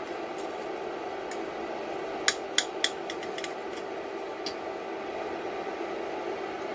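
Knife and fork cutting a soft omelet on a ceramic plate, the metal clinking against the plate in a few sharp ticks, three louder ones in quick succession a little over two seconds in, over a steady low hum.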